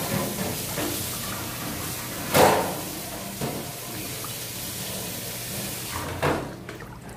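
Cabbage leaves being handled and dropped into a steel pot of simmering soup on a gas stove, over a steady hiss. Two louder knocks, about two and a half and six seconds in, sound like the steel bowl or pot being bumped.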